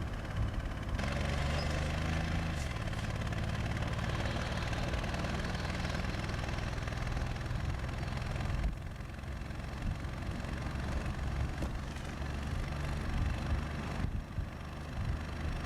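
Car engine and road noise from inside a moving car, a steady low hum that grows louder about a second in and drops back about nine seconds in.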